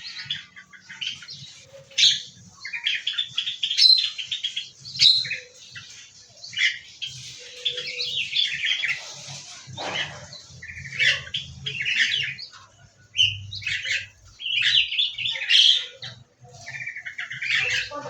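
Several small aviary birds chirping and twittering, with quick rattling trills and sharp call notes overlapping, and faint low thumps of movement.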